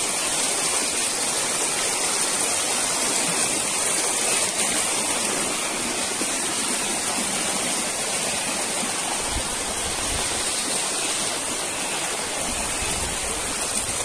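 Shallow rocky stream running and splashing over stones, a steady close rush of water.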